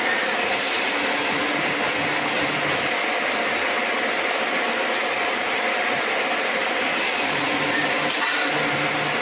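Automatic scaffolding-pole welding machine running: a steady, even mechanical noise with a faint hum.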